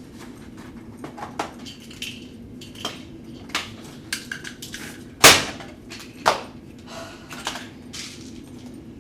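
A string of clicks, clinks and knocks from small hard objects being handled and set down. The loudest is a sharp knock about five seconds in, with another about a second later.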